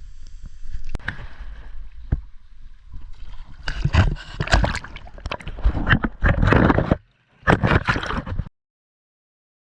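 Sea water sloshing and gurgling close to the microphone in irregular surges with a low rumble, dropping out briefly about seven seconds in and cutting off suddenly soon after.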